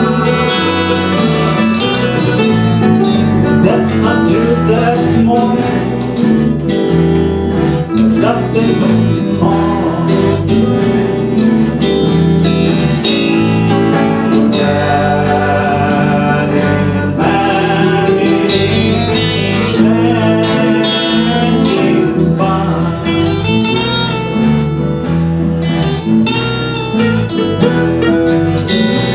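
Small acoustic string band playing live: acoustic guitars with bass and mandolin.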